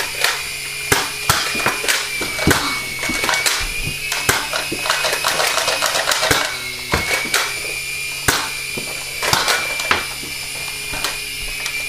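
A small coaxial RC helicopter's electric motors whine steadily, the pitch wavering slightly. Over the whine come irregular sharp clicks and clacks from Nerf dart blasters being primed and fired.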